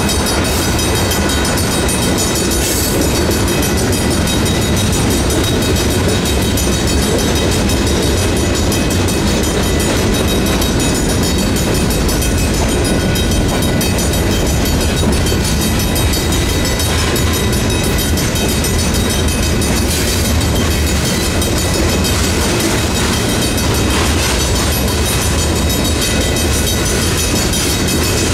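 Freight cars of a manifest train rolling steadily over the crossing, wheels clattering on the rail joints. A Griswold mechanical crossing bell rings throughout.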